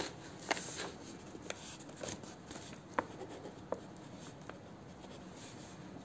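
Ballpoint pen writing on a sheet of paper: a string of short scratches and taps, the sharpest about three seconds in, with fainter strokes after that.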